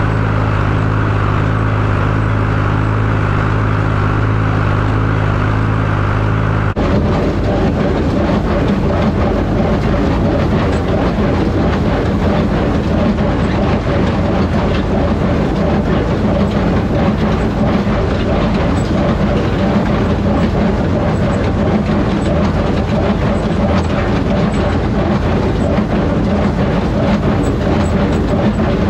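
Tractor engine running steadily, then, about seven seconds in, an abrupt change to the louder, rattling run of a John Deere 820 tractor pulling a New Idea square baler through hay.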